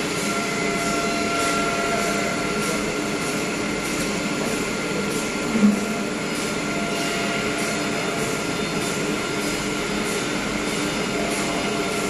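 CNC woodworking machinery running steadily with a steady whine of several tones, a faint regular ticking and one brief louder sound about five and a half seconds in.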